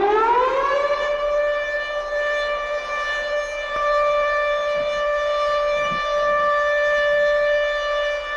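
A siren wail that finishes winding up in pitch about a second in, then holds one steady high tone.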